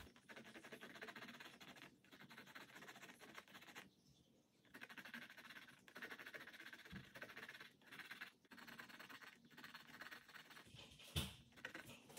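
Colored pencil scratching faintly across a canvas in short, repeated shading strokes, with a brief pause about four seconds in and a single louder tap near the end.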